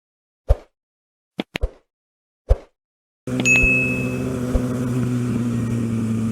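A few short, sharp dings from an edited intro, with dead silence between them. A little over three seconds in, the sound cuts to a Kawasaki ZX-6R's inline-four engine idling steadily.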